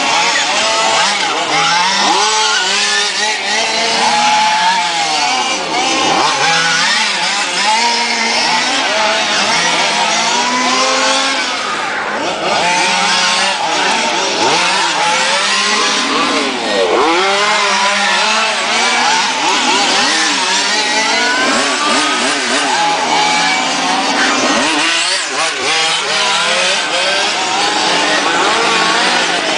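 Several radio-controlled model race cars' motors running together, each pitch repeatedly rising and falling as the cars accelerate and brake around the track.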